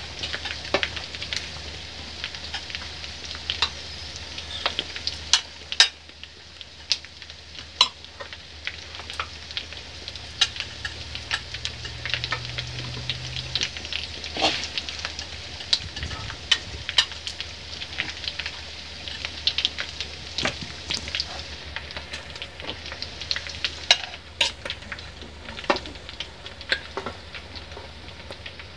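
Metal serving spoon and fork clinking and scraping against aluminium pots and a plate as food is dished up, irregular clicks throughout with a couple of sharper knocks around six and eight seconds in, over a soft steady hiss and a low hum.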